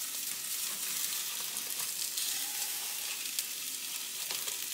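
Salmon patties sizzling steadily in a nonstick skillet while they are turned over with a spatula.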